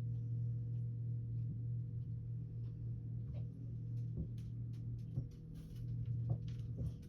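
A steady low hum runs throughout, with a few faint scattered clicks and ticks.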